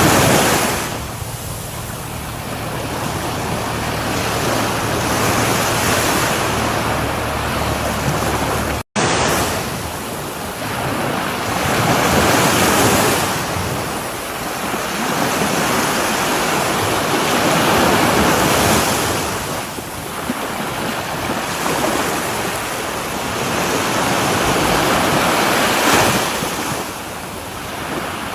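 Sea waves breaking and washing up a shore, surging and receding in slow swells every six seconds or so. The sound cuts out completely for a split second about nine seconds in.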